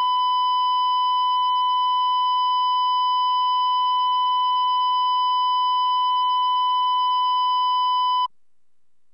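Television station's thousand-hertz line-up test tone, one steady unwavering beep that cuts off abruptly near the end.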